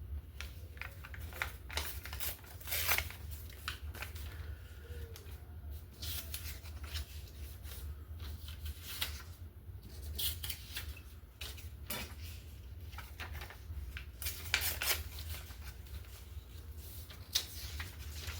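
Paper scraps being handled and shuffled, giving short, irregular rustles and scrapes, over a steady low hum.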